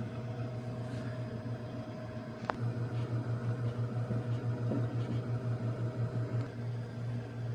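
Microwave oven running with a steady hum, with a single sharp click about two and a half seconds in.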